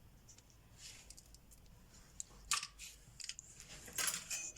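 Heat-shrink tubing being cut and handled: a few short, sharp snips and clicks, the loudest about two and a half seconds in and again about four seconds in, with smaller ticks between.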